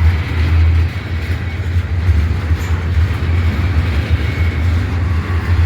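Intermodal freight train's container well cars rolling past at close range, a steady low rumble with wheel-on-rail noise.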